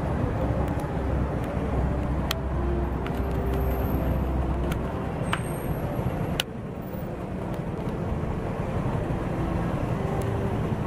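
City street traffic: motor vehicles running, with a heavy low engine rumble through the first half that drops off suddenly about six seconds in. A few sharp clicks sound over the traffic.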